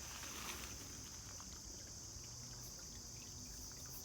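Steady, high-pitched chorus of insects, crickets or similar, chirring without a break.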